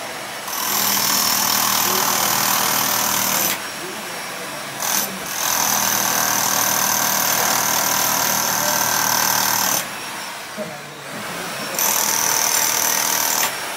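Electric demolition hammer with a chisel bit chipping concrete from a reinforced wall. It runs in three long bursts of several seconds each, with short pauses and one brief blip between them.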